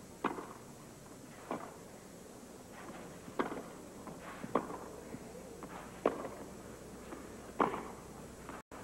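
Tennis rally on a clay court: a racket strikes the ball with a sharp pock about six times, roughly every second and a half, as the two players trade groundstrokes.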